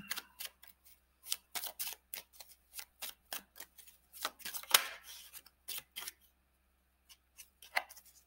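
A deck of tarot cards being shuffled by hand: a quick, irregular run of card flicks and slaps that pauses about six seconds in, with a few more near the end.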